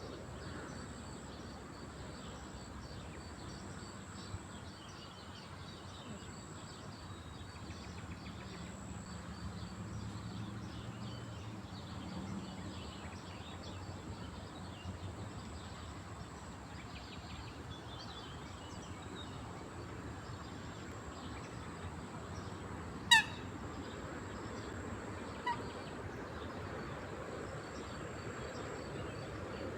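Quiet lakeside ambience with small birds chirping faintly, broken near the end by one loud, short call from a Eurasian coot and a fainter second call a couple of seconds later.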